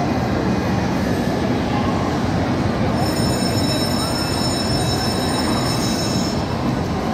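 Spinning disc ride rolling back and forth along its curved track with a loud, steady rumble. A high steady whine joins it from about three seconds in and stops a little after six.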